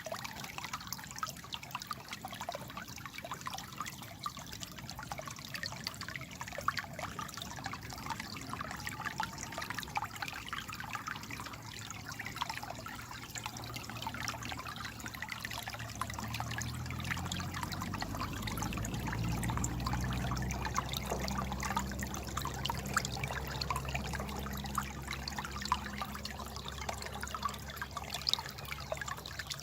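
Water trickling and babbling like a small stream, a dense patter of small splashes. About halfway through, a low droning rumble comes in, strongest a little past the middle, and fades toward the end.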